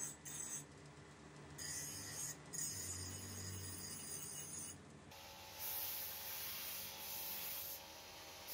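Bench grinder running while a cast brass tap is pressed against its abrasive wheel, a continuous grinding noise. About five seconds in the sound shifts to a brighter, steadier hiss with a faint hum.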